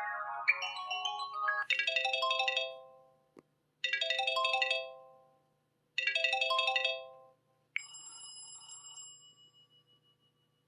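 Samsung Galaxy S (SCH-i500) ringtone playing. A melodic chime phrase is followed by three identical bell-like chords about two seconds apart, each ringing out and fading. Near the end a single higher bell tone sounds and fades away.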